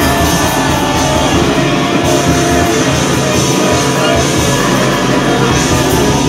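Several saxophones blowing together in loud, dense free-improvised noise music, a continuous wall of sound with no pauses.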